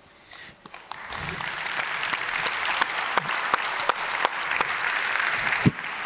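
Audience applauding, the clapping starting about a second in and then holding steady.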